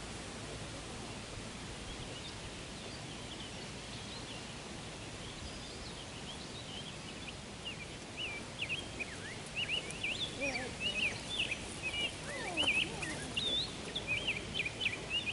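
Steady outdoor background noise with birds chirping: many short, quick high chirps start about eight seconds in and grow busier toward the end.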